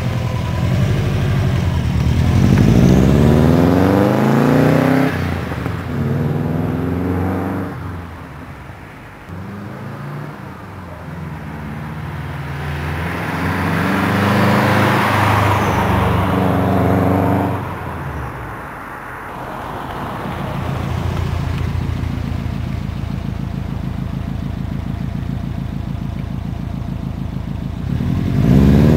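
2003 Subaru Impreza WRX's turbocharged flat-four running through a Borla Hush twin-tip cat-back exhaust. It accelerates twice with the pitch climbing and then dropping away, then settles into a steady, even idle for several seconds, and begins revving again at the very end.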